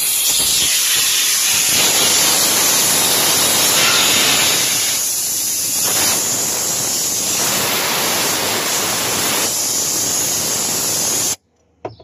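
Compressed air blowing into a skid steer's ECU connector and socket: a loud, steady hiss that cuts off suddenly near the end, clearing out water and rust from the connector.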